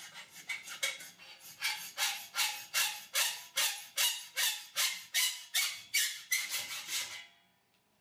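Hacksaw cutting into a metal cable tray held in a vise: short quick strokes at first, settling into a steady back-and-forth of about two and a half strokes a second, stopping about seven seconds in. These are the cuts that let the tray bend into a set.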